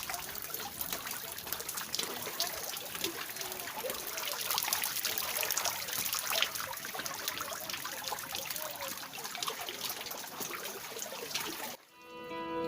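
River water trickling and splashing in a steady babble that cuts off suddenly near the end, where guitar music begins.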